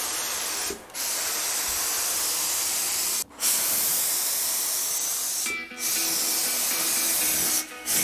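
Fuji T75G gravity-feed HVLP spray gun, fed by a turbine, spraying lacquer: a steady hiss of air and atomised finish in passes of about two seconds. It breaks off briefly four times as the trigger is released between strokes.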